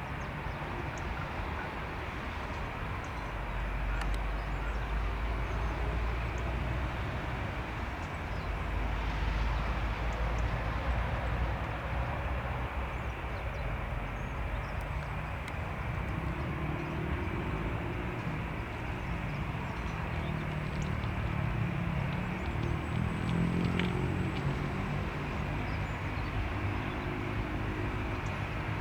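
Airbus A319 jet engines running at a distance: a steady rumbling hiss, with a low drone that shifts in pitch from a little past halfway.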